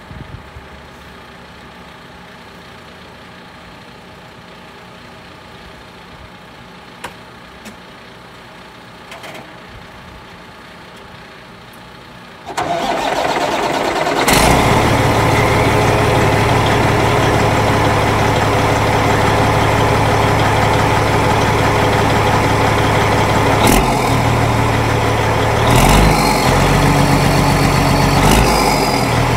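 The diesel engine of a 2005 Freightliner Columbia 120 is cranked about twelve seconds in and catches about two seconds later. It then idles loudly through the bare exhaust pipe with its stack removed, and the note changes briefly twice near the end.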